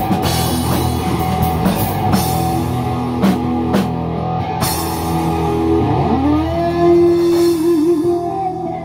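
Live rock band playing with electric guitar, bass and drum kit. The drum hits stop about halfway through, and a single guitar note bends upward and is held with vibrato as the song winds down.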